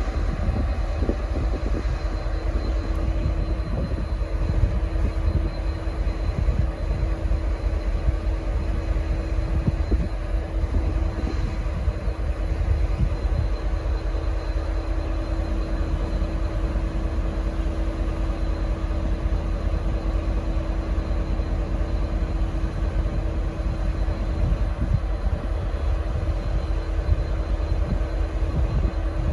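V/Line N class diesel-electric locomotive running steadily while standing at the station, a deep rumble with a steady hum that fades near the end. No horn sounds and the engine note does not rise.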